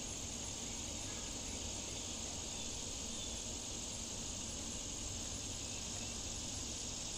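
Steady, unbroken high-pitched chorus of insects, crickets or the like, over a low, even background rumble.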